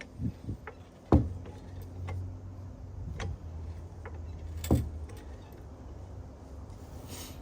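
Sharp metal knocks and lighter clinks from a car jack being worked under the car: two loud knocks about three and a half seconds apart, the first about a second in.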